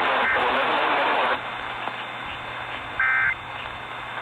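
Radio static that drops to a quieter hiss about a second and a half in. Near the end comes one short, buzzy burst of Emergency Alert System SAME data tones. It is the first of the brief end-of-message bursts that close an EAS alert.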